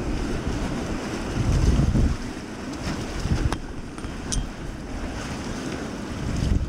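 Whitewater rushing and splashing around a raft running a rapid in high water, with wind buffeting the microphone. The water swells loudest about one and a half to two seconds in, and a couple of short sharp knocks come near the middle.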